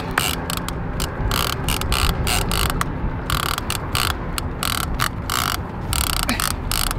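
Heavy 50-wide conventional fishing reel working under the load of a hooked shark: a fast, uneven ratcheting clatter from the reel's mechanism.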